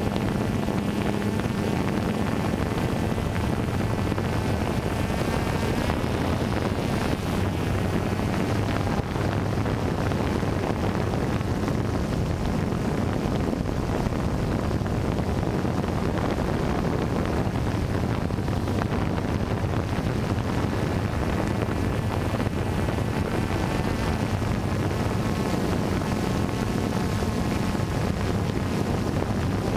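DJI Phantom 2 quadcopter's four motors and propellers buzzing steadily in flight, picked up by its onboard camera, with wind rushing over the microphone.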